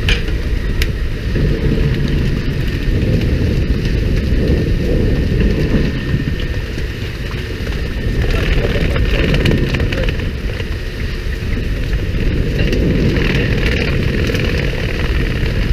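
Steady engine and water noise aboard a pole-and-line tuna fishing boat, with wind on the microphone. Twice a brief spell of hissing splash and spray rises over it.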